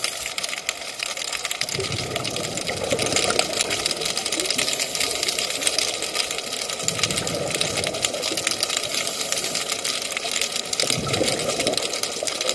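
Underwater sound in a kelp forest: a dense, steady crackle of tiny clicks, with a low rush of scuba divers' exhaust bubbles swelling every few seconds.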